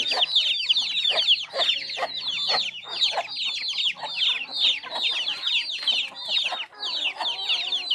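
Free-range chickens and chicks calling: a constant chorus of high, quick, falling peeps, many each second, over scattered clucks.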